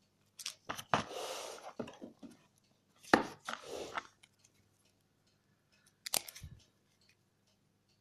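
Cardboard packaging being handled: a cardboard insert is pulled up and slid out of the box with scraping and rustling, broken by sharp knocks and taps. The loudest knock comes just after three seconds in.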